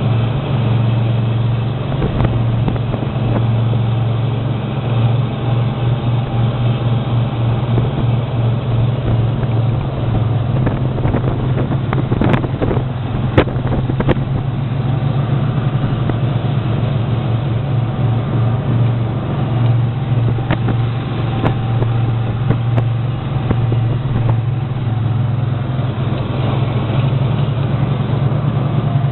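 A steady, loud low machine hum, with a few sharp knocks about halfway through.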